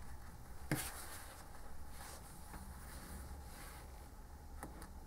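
Faint sounds of hand embroidery: needle and embroidery floss drawn through cotton quilt fabric, with one short sharp click a little under a second in and a few faint ticks near the end, over a low steady hum.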